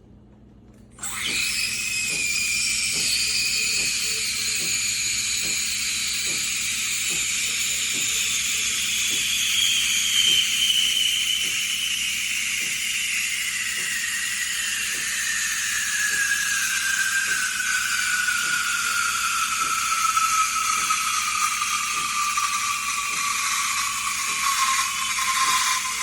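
QJA espresso machine's steam wand hissing; it starts about a second in and holds a whistling tone that slowly falls in pitch. The machine's pump ticks steadily underneath, about twice a second.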